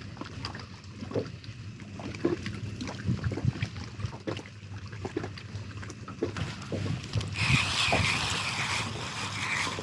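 Scattered light knocks and bumps in a small fishing boat over a faint steady low hum. A louder hissing rush comes in about seven and a half seconds in and lasts under two seconds.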